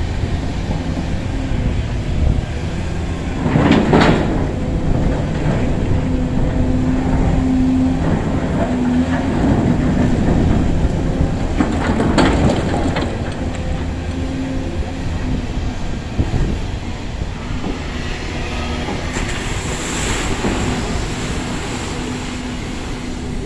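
A long-reach excavator's diesel engine and hydraulics running steadily under work, with a louder surge about every eight seconds.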